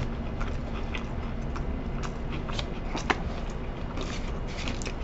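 Close-up chewing of a mouthful of crispy fried chicken sandwich, with small crackles and paper-wrapper rustles over a steady low hum. One sharper click about three seconds in.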